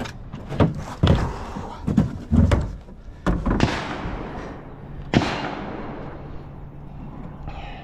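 A rifle and gear being handled against a pickup truck's bed: about seven knocks and clunks in the first five seconds, then a low steady hum.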